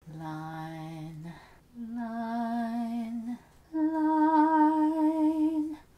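A person humming three long held notes, each one higher than the last, with short pauses between them.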